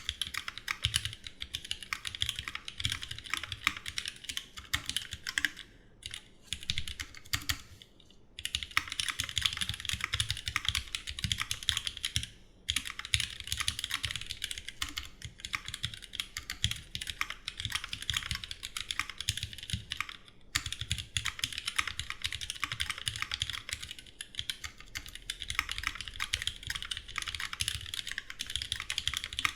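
Fast, continuous typing on a Duck Jetfire mechanical keyboard with rebuilt vintage Cherry MX Black linear switches, lubed with Krytox 205 and filmed, under GMK keycaps, with a few brief pauses between bursts.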